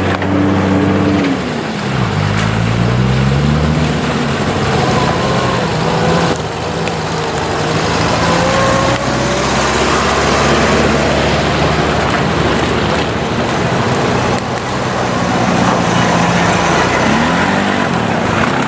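Nissan Patrol off-roader's engine pulling on the trail. Its revs drop about a second in, climb again, then hold, and rise once more near the end, over a constant loud rushing noise.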